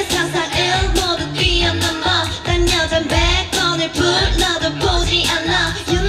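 K-pop dance song with female group vocals singing over a steady kick-drum beat of about two beats a second.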